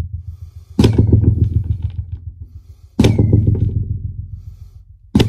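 Three sledgehammer blows, about two seconds apart, driving the new plastic sewer pipe a few inches further in. Each blow is a sharp crack followed by a fast rattling that dies away.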